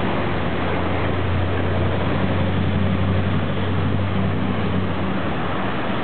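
City street traffic: the steady rush of passing cars with a low engine hum underneath that stops about five seconds in.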